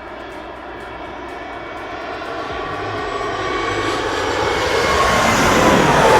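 Airliner passing close by, its engine noise growing steadily louder and peaking near the end, with a whine that drops in pitch as it goes past.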